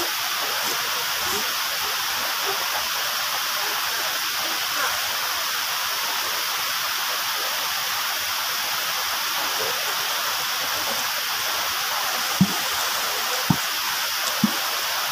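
Steady rushing noise of running water, with three short knocks about a second apart near the end.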